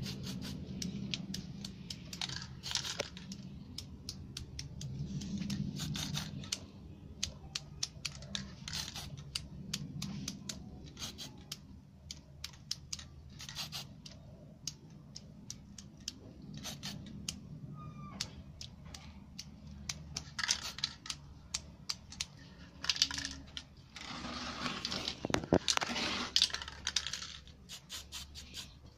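Aerosol spray paint can hissing in short bursts, the longest lasting a few seconds near the end, amid many sharp, irregular clicks and taps.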